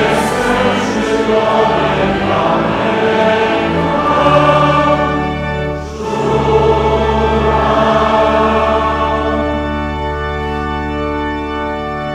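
A large group of men singing a slow hymn together with organ accompaniment, in two long held phrases with a short break about six seconds in.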